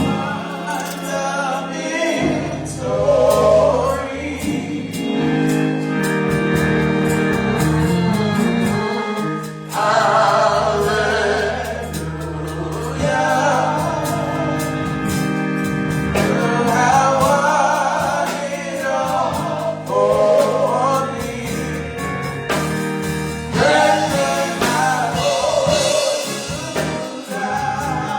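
Gospel music: singers, sounding like a choir, over held instrumental chords, in phrases a couple of seconds long.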